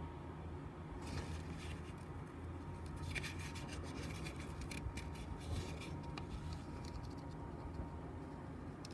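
Paper rustling and rubbing in short bursts as a folded paper instruction manual is handled, over a faint steady low hum.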